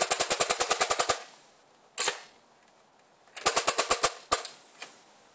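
CO2-powered Nerf Magstrike firing full-auto, its solenoid valve releasing rapid puffs of gas. A burst of over a dozen shots comes at about twelve a second, then a single sharp pop about two seconds in, then a shorter burst of about eight shots.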